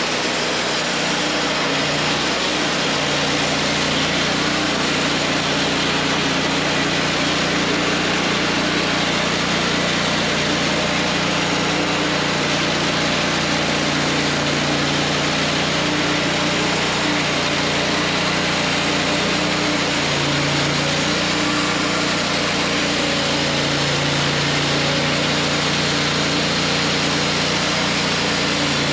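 WoodMizer LT40 Wide band sawmill running steadily, its engine under load as the band blade cuts through a hickory log.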